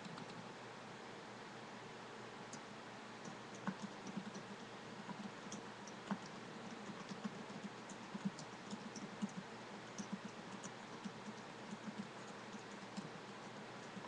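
Typing on a computer keyboard: faint, irregular keystroke clicks start a few seconds in and keep coming unevenly, over a steady hiss.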